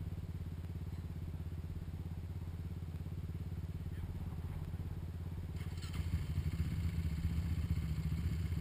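ATV engine idling with a low, pulsing throb, which grows louder about six seconds in.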